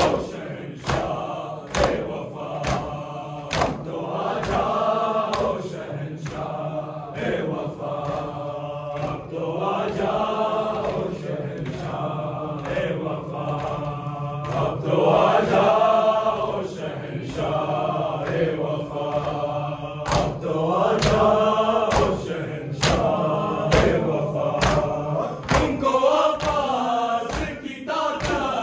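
A group of men chanting a Muharram noha in unison, over a steady rhythm of sharp hand slaps from matam, the ritual beating of the chest in mourning.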